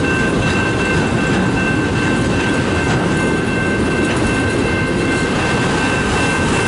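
Autorack cars of a long freight train rolling past close by: a steady, loud rumble of wheels on rail with a thin, steady high-pitched squeal held throughout.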